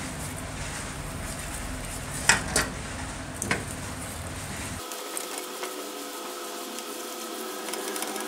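Small brush scrubbing the metal gear housing of an old circular saw in a steel pan of cleaning fluid, with three sharp knocks between about two and three and a half seconds in.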